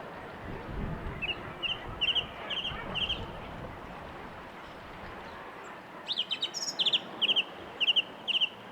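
A bird calling in two runs of short, sharp repeated notes, about two a second. One run starts about a second in, the other at about six seconds.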